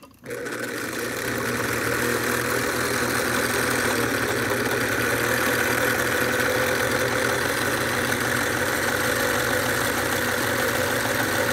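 White Series 77 Rotary sewing machine running steadily, its motor whirring and needle stitching through fabric on a short stitch length. It winds up over the first second and cuts off suddenly at the end.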